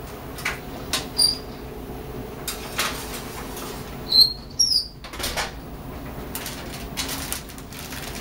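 Oven door opened and a metal baking sheet of potatoes slid onto the oven rack, with short high metal squeaks, two louder rising squeaks about four seconds in, and a few light knocks and clanks as the pan goes in and the door is shut.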